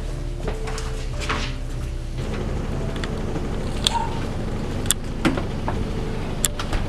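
Music ending about two seconds in, then a front door opening and shutting: a few sharp clicks and knocks over a low steady hum.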